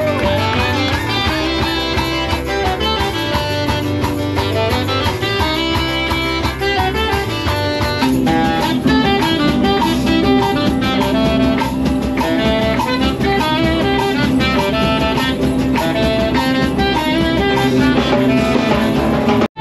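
Live band music: a small group led by guitar plays a lively tune without a break.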